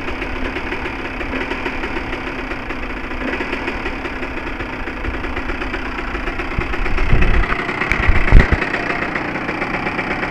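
1995 Honda CR125's single-cylinder two-stroke engine idling steadily, warming up to operating temperature after a fresh top-end rebuild. Two brief low thumps come about seven and eight seconds in.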